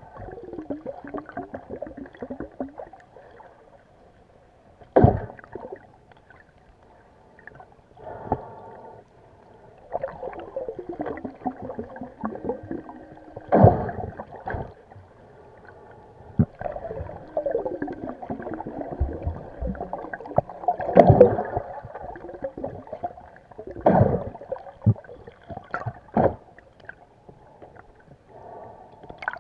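Muffled underwater gurgling and bubbling heard through a camera's waterproof housing as a swimmer moves along the seabed, with several sharp knocks.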